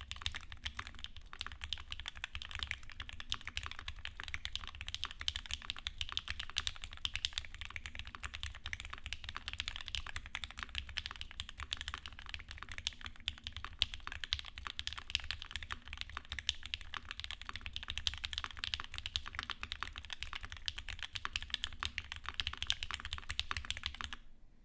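Fast, continuous typing on a custom mechanical keyboard: Kyuu aluminium case with brass plate and weight, lubed Mauve linear switches with thick films, and GMK Modern Dolch keycaps. The typing stops abruptly just before the end.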